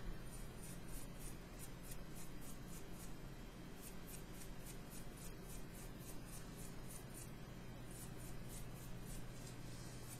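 Paintbrush bristles scrubbing back and forth over a model kit's surface in quick, repeated scratchy strokes, brushing off excess oil wash. A steady low hum runs underneath.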